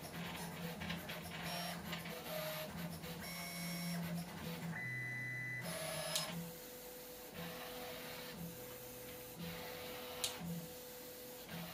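HyperCube 3D printer printing at 100 mm/s, its NEMA17 stepper motors driven by TMC2100 drivers in spreadCycle mode. The motors whine in a series of short tones that change pitch with each move of the print head, with a few light ticks.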